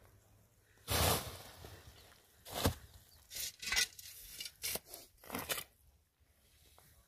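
Irregular scuffs, crunches and rustles of someone moving about on dry, stony dirt: a handful of short noisy sounds, the first and longest about a second in.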